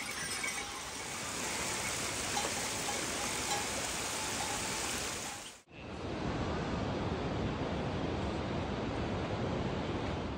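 Steady rushing hiss of a mountain waterfall, with a few faint jingles of mule neck bells in the first couple of seconds. About halfway through an abrupt cut brings in a different steady rushing noise with more low rumble.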